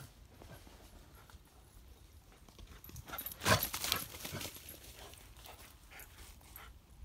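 A dog crashing through wet, long grass and undergrowth, with one loud burst of rustling about three and a half seconds in as it plunges into the vegetation, then a few softer rustles as it runs on.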